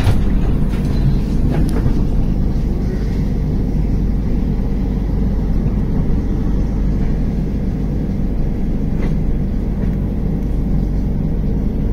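Steady low rumble of a moving passenger train's wheels running on the track, heard from an open coach door, with a few light clicks.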